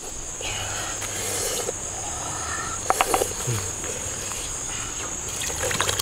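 Insects keeping up a steady high-pitched drone, with a couple of sharp clicks about three seconds in.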